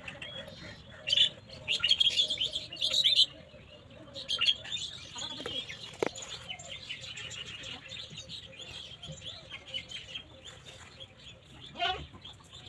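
Small birds chirping in quick clusters of high chirps, busiest in the first few seconds and sparser after. A single sharp click about six seconds in.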